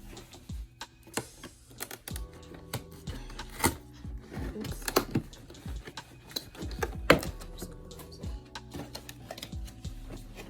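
Cardboard box and packaging being opened and handled: scattered clicks, taps and knocks, the sharpest about seven seconds in, over background music.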